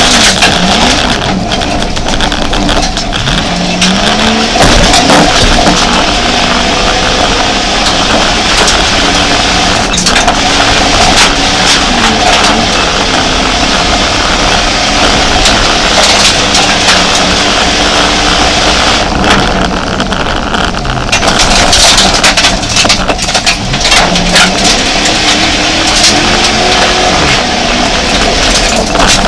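Rally-prepared Jeep Grand Cherokee's engine heard from inside the cabin, revving hard and falling back again and again as it is driven flat out over a rough dirt track. Frequent sharp knocks and rattles from the body and suspension hitting bumps.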